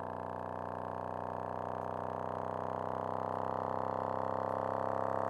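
DB Drive WDX 6.5G2.4 6.5-inch subwoofer playing a sine sweep: a low tone rising slowly from about 62 to 65 Hz and growing a little louder, with a stack of overtones above it.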